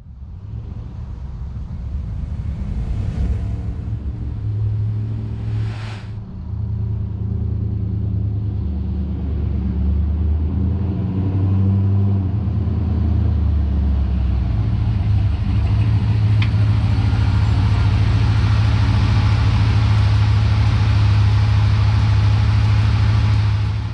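V8 engine of a 1968 Chevrolet K10 pickup running, its note shifting up and down in the first half and then settling into a steady, louder drone. Two whooshes sound about 3 and 6 seconds in.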